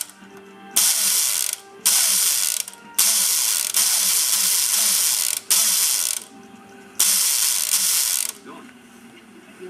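Airsoft electric gun (AEG) gearbox, split open, firing in bursts: the motor and gears cycle in five runs, most about a second long and one of about two and a half seconds, with short pauses between. The trigger is only partly pulled (short-stroked), the condition that lets the trigger contacts arc.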